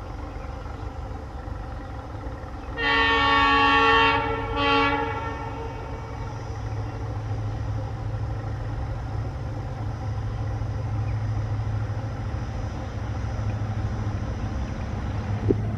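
WDP-4D diesel locomotive's horn sounding one long blast and then a short one about three seconds in. Under the horn runs the steady low rumble of its EMD two-stroke engine, which grows louder as the locomotive draws nearer.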